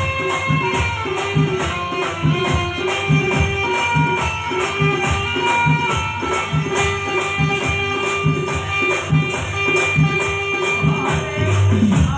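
Live devotional folk music: large brass hand cymbals clashing in a steady, fast rhythm over a sustained keyboard melody and a regular low beat.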